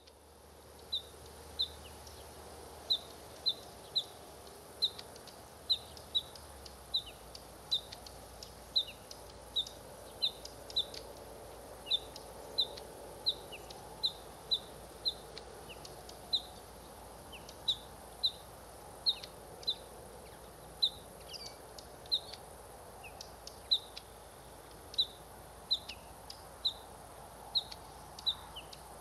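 Female bluethroat calling a short, high note over and over, about twice a second with brief pauses, while carrying food for her fledglings. Fainter scattered chirps sound above it over a steady low background hum.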